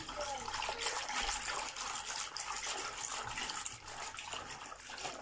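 A hand stirring warm yeast water, with salt and sugar dissolved in it, in a plastic basin: continuous swishing and sloshing of the water, the first stage of mixing bread dough.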